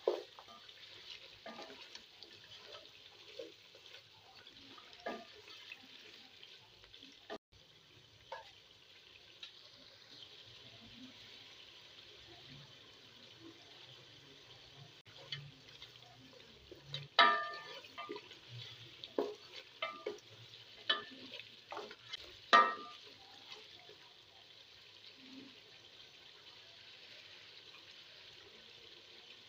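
Chicken pieces frying in oil in a coated pot with a steady sizzle, while a wooden spatula stirs and knocks against the pot; the loudest knocks come in a cluster past the middle.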